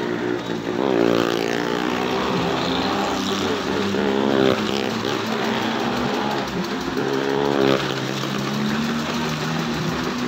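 Car and motorcycle engines running hard as they circle the vertical wall of a well-of-death drum. The engine note swells and rises and falls in pitch a few times.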